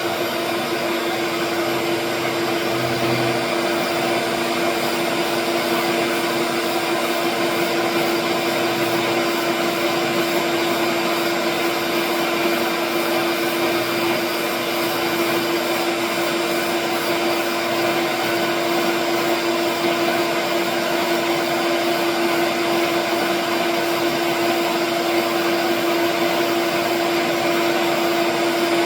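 Shop vacuum running steadily for dust extraction at a wood lathe, a constant motor hum under an even rush of air.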